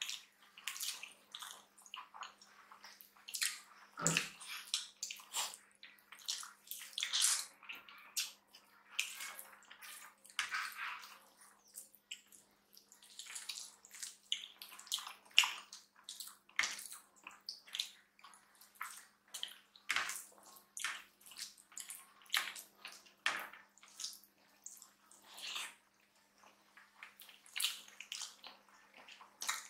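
Close-up wet eating sounds: fingers squishing rice with dal and curry on the plates, with chewing and lip smacks from two people eating by hand, coming as a quick, irregular patter of small squelches and clicks. A faint steady hum runs underneath.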